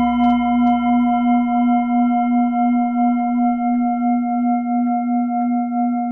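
Struck metal singing bowl ringing on in one long tone with several higher overtones and a slow pulsing wobble, cut off abruptly at the end.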